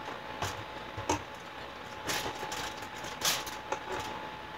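Scattered handling clicks and rustles of frozen snow crab legs and a foil pan, about five short sharp sounds spread apart, over a faint steady hum.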